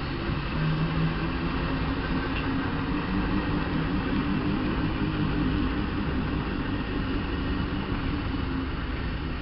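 Steam traction engine running as it tows a caravan away, a steady mechanical noise with a low hum and no distinct beat.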